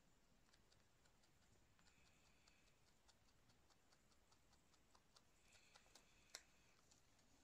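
Faint, quick crunching clicks of a rabbit chewing hay, a few a second, with one sharper click near the end.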